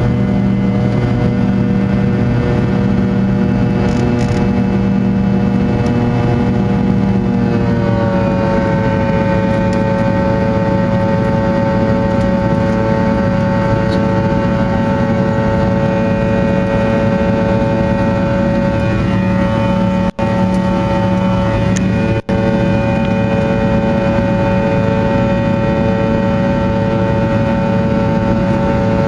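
Cabin sound of a Fokker 100's rear-mounted Rolls-Royce Tay turbofan engines under power, a steady whine made of several tones. About eight seconds in, the tones slide down in pitch and settle lower, as thrust is eased back. There are two momentary dropouts later on.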